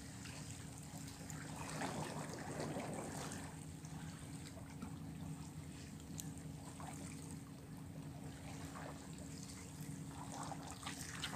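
Small waves washing and trickling against the rocks of a breakwater, swelling a couple of times, over a steady low hum.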